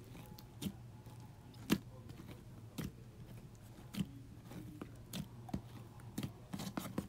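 Homemade styrofoam-and-nail-polish-remover slime being squeezed and kneaded by hand, giving irregular sticky clicks and crackles that come faster near the end. A faint steady low hum runs underneath.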